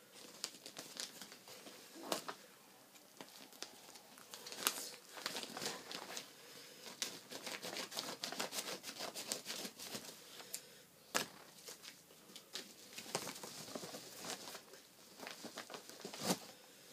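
A white mailer envelope being cut and torn open by hand: crinkling and rustling of the wrapping, with sharp clicks and tearing sounds throughout.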